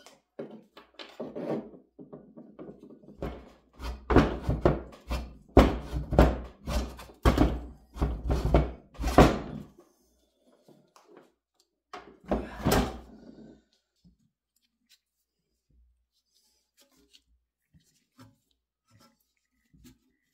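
Heavy metal knocks and thunks from an old AMT bench drill press as its head is worked loose on the column, about two a second for some six seconds, then one more loud knock a few seconds later.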